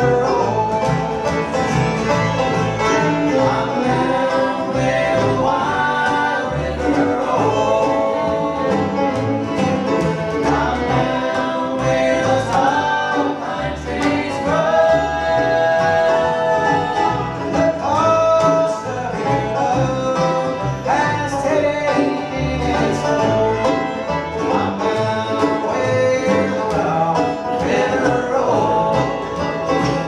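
Bluegrass band playing live, with banjo and acoustic guitar over upright bass, and mandolin and fiddle joining in. Long notes slide between pitches above the picking.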